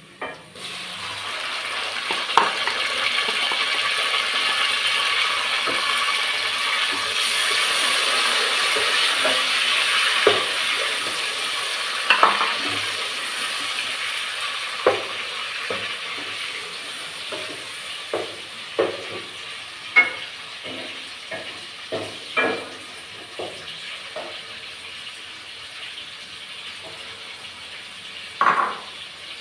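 Chopped tomatoes sizzling as they fry with onions in a steel pot. The sizzle is loud for the first dozen seconds, then eases off. A wooden spoon stirs and knocks against the pot, most often in the second half.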